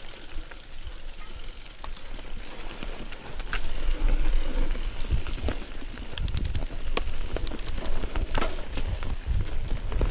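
Mountain bike riding fast downhill over a dirt and leaf-covered trail: tyres rolling on the ground, with repeated clatters and knocks from the bike over bumps. Wind rumble on the microphone grows louder about four seconds in as speed picks up.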